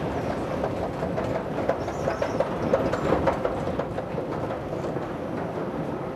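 Metro train running on its rails, the wheels clattering with many small clicks; the clatter is densest and loudest about two to three and a half seconds in.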